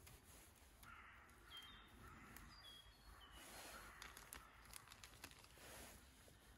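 Faint woodland ambience with a few short, high bird chirps in the first half.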